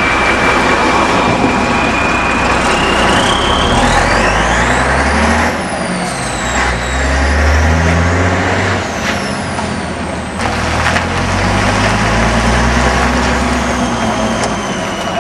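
Heavy diesel truck engine revving hard again and again, its pitch rising and falling, with high whistling tones sliding up and down over it.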